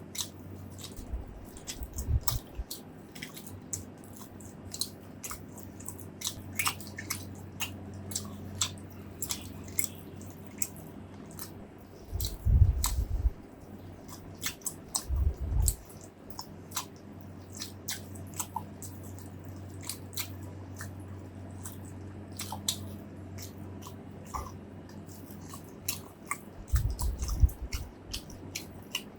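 Close-miked eating sounds: a person chewing and biting braised pork ribs, rice and fresh vegetables, with many wet mouth clicks and smacks, and a few heavier low thuds about halfway through and near the end.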